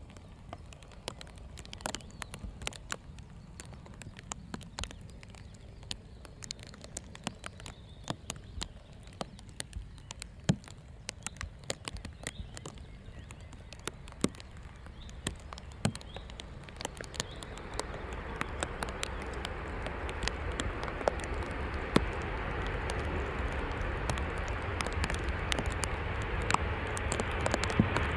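Rain pattering with many sharp ticks over a low rumble. About two-thirds of the way in, a broad rushing noise builds and keeps growing: a Boeing 737-800's CFM56 jet engines and tyre spray as it rolls out on a wet runway after touchdown.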